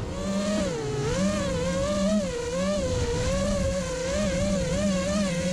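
FPV racing quadcopter's four ZMX Fusion 2206 2300kv brushless motors spinning three-blade props, heard from the onboard camera: a steady whine whose pitch wavers up and down about twice a second as the throttle is worked to hold the quad low.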